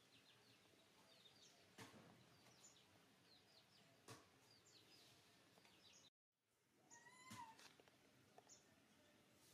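Near silence with faint small bird chirps and a few soft clicks. After a brief dropout about six seconds in comes one short squeaky animal call that bends in pitch.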